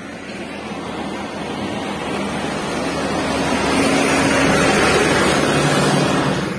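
A car driving on a wet road, its road noise swelling as it draws alongside a backhoe loader clearing snow, with a low engine hum joining about three seconds in. The sound drops off suddenly near the end.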